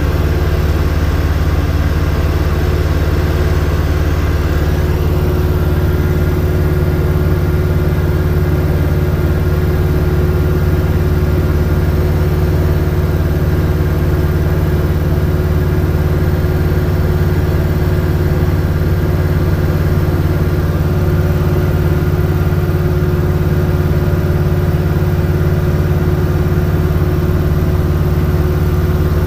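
Robin DR400's piston engine and propeller droning steadily in cruise flight, heard from inside the cabin.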